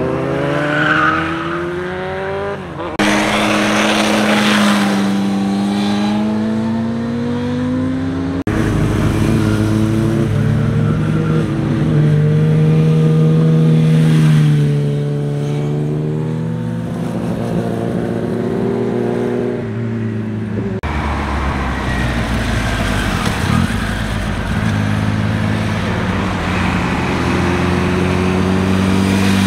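Motorcycle engines revving up and dropping back as the bikes ride through tight bends and pass close by, the pitch rising and falling with throttle and gear changes. The sound switches abruptly to a different bike three times.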